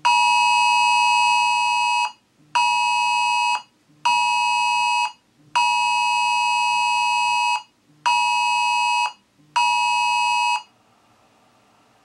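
iPhone sounding the Wireless Emergency Alert attention signal, a loud two-tone alarm (853 and 960 Hz together), in a long-short-short pattern played twice. That makes six tones: the first and fourth last about two seconds, the others about one second each, with half-second gaps, and a low buzz runs under each tone.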